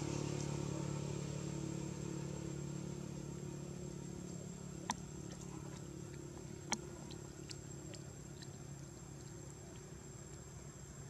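A steady, low engine drone from a passing vehicle, slowly fading away. Two sharp clicks come near the middle, over a thin, steady, high-pitched whine.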